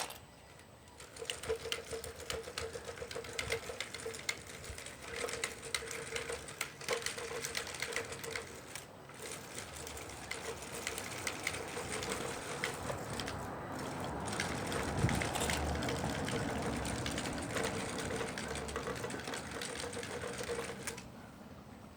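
Small electric motor and pump of a radio-controlled scale model machine running with a high whine that starts and stops in stretches, under rapid mechanical clicking and rattling. It grows louder and heavier around the middle.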